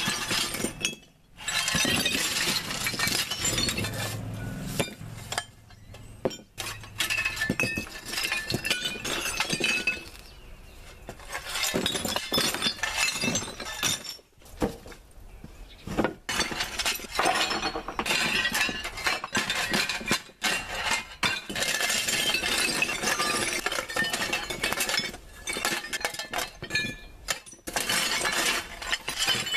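Broken porcelain toilet shards being scraped up off a plywood sheet with a square shovel and tipped into a cardboard box: repeated runs of scraping, clinking and clattering china, with short pauses between scoops.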